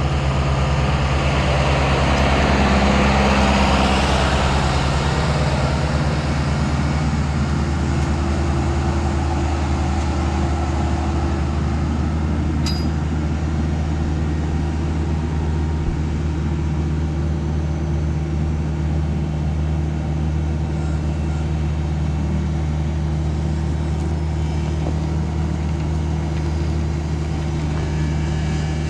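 Bobcat E26 mini excavator's diesel engine running steadily, swelling louder for a few seconds near the start.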